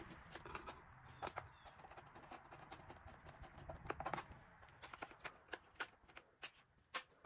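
Faint, irregular clicks and taps of hand tools on the screws of the recoil cover of a Homelite XL2 Auto chainsaw as they are undone, over a faint low hum.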